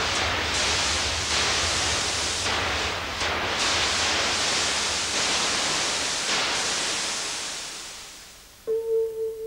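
Loud steady rushing noise with brief dips in its hiss, fading away over the last couple of seconds. Near the end a steady pure tone with a faint higher overtone starts abruptly.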